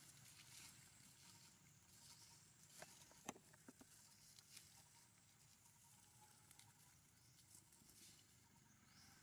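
Very faint crackling of dry leaf litter as a baby macaque moves over it, with a small cluster of sharper crackles about three seconds in; otherwise near silence.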